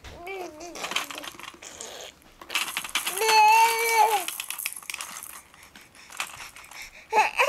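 Baby blowing raspberries: rough, spluttering lip buzzes, with a held, humming voice through them for about a second in the middle.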